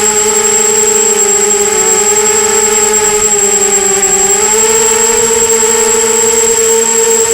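Brushless motors and propellers of a 250-size FPV racing quadcopter buzzing steadily, the pitch stepping up about four and a half seconds in as the throttle is raised. A thin high whine runs alongside.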